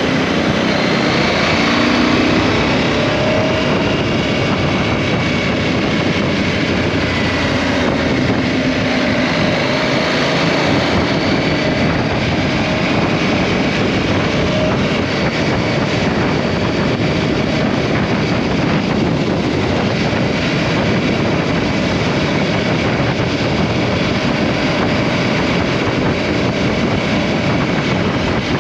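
KTM 790 Adventure's parallel-twin engine running under way, mixed with steady wind noise on the microphone; the engine note shifts up and down in the first few seconds, then the wind noise dominates.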